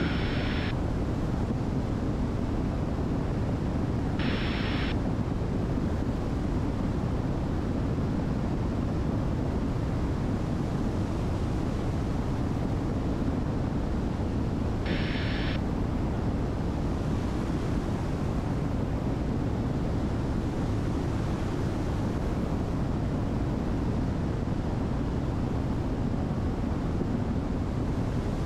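Steady in-flight drone of a light aircraft's engines and rushing air. Short hissy bursts break in three times: one ending just after the start, one about four seconds in and one about fifteen seconds in.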